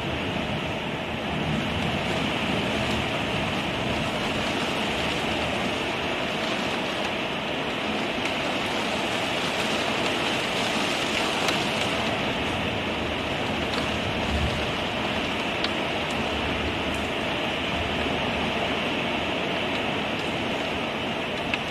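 Torrential rain pouring down steadily in a storm, an even hiss of heavy rainfall with a few faint ticks of drops.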